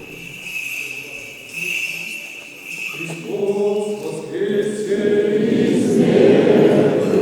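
Small bells jingling with a steady high ring. About three seconds in, voices begin singing and grow louder toward the end, typical of an Orthodox church service.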